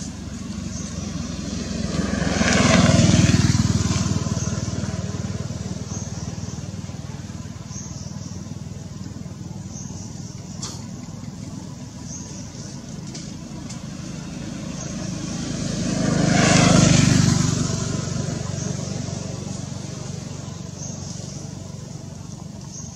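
Two motor vehicles drive past, one after the other: each engine sound swells up and fades away over several seconds, the first peaking about three seconds in and the second about seventeen seconds in.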